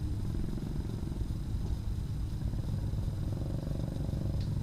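A steady low rumble with a fine rapid pulsing to it, with a faint steady high-pitched whine above it.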